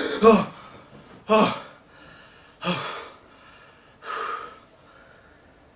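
A man gasping sharply as he jolts awake from a nightmare, then three heavy breaths about a second and a half apart, each quieter as he catches his breath.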